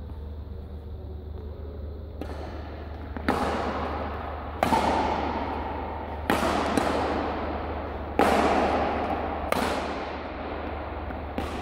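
Badminton rally: rackets striking the shuttlecock with a sharp crack every one to two seconds, starting about two seconds in, each hit ringing on in the echo of a large sports hall.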